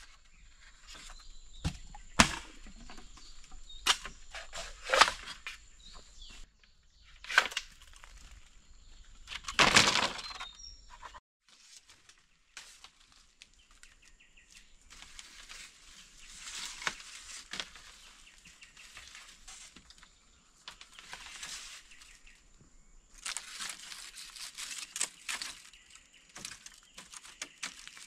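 Bamboo poles knocking and clattering while a shelter frame is put together, a handful of sharp knocks in the first half, then softer rustling and scraping.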